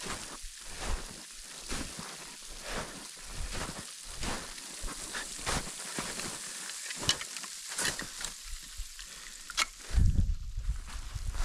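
Footsteps crunching in snow on a mountain descent, a little more than one step a second. A loud low rumble comes in near the end.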